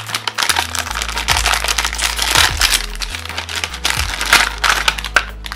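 A shiny plastic blind bag crinkling and crackling as hands work it open, with background music and a steady bass line underneath.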